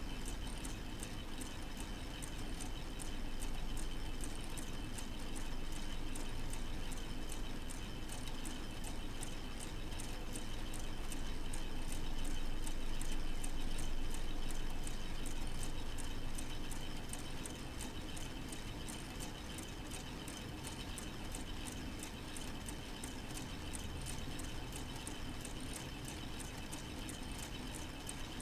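K'nex plastic model four-cylinder engine running: its plastic gears, rods and connectors click and clatter in a rapid, even rhythm, over a steady high-pitched tone and a low hum.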